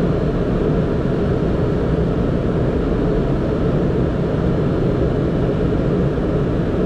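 Steady, low noise inside a Boeing 767 on approach, the aircraft's engines and airflow heard without change.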